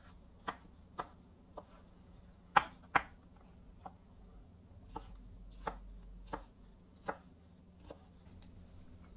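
A knife rough-chopping pickles on a cutting board: about a dozen separate strokes, unevenly spaced, roughly one every half second to second.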